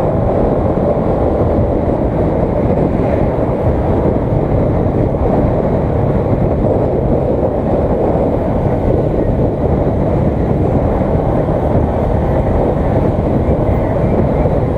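Motorcycle on the move: a steady rush of wind on the camera microphone over the drone of the engine.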